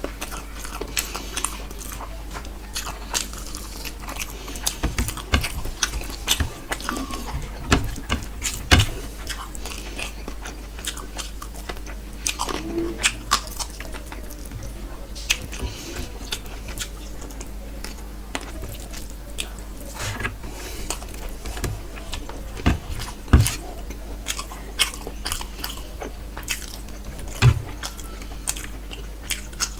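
Close-up mouth sounds of a person eating chicken bhuna masala with rice: chewing and biting, with many short, irregular clicks and smacks.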